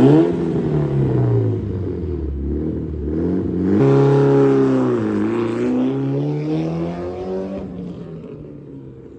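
Car engine accelerating hard, its pitch climbing and dropping as it revs. The engine surges louder about four seconds in and fades away over the last two seconds.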